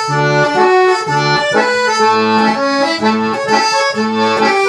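Piano accordion playing an instrumental passage of a gaúcho song between sung verses: a melody of held notes over bass notes that alternate about twice a second.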